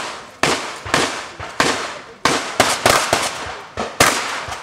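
A fast string of shotgun shots, about two a second, each a sharp bang that trails off before the next.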